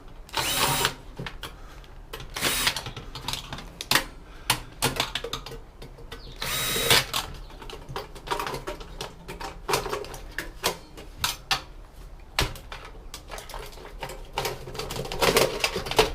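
Cordless power driver running in several short bursts as screws are backed out of a computer-style chassis, with clicks and clatter of screws and small metal parts in between.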